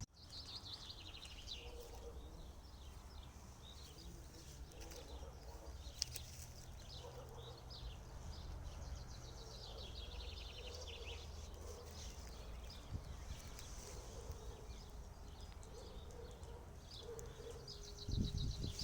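Songbirds singing outdoors, repeated rapid trilling phrases, over a low steady rumble; a louder low rumble comes in near the end.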